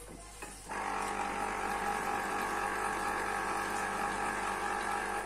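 Electric lever-arm citrus juicer's motor starting about a second in as the arm is pressed down on a citrus half, then spinning the reamer cone with a steady hum; it cuts out briefly right at the end and starts again.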